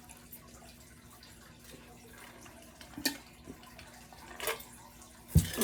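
Crawfish-eating mouth and hand sounds: a few sharp wet clicks and smacks spaced out over several seconds, with a louder thump near the end, over a faint steady hum.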